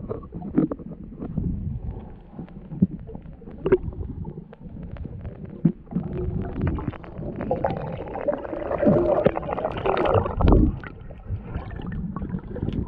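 Underwater sound picked up by a camera below the surface: a muffled rumble and gurgle of water and bubbles with many scattered sharp clicks and knocks. About eight seconds in it grows into a louder, denser bubbling wash for a couple of seconds.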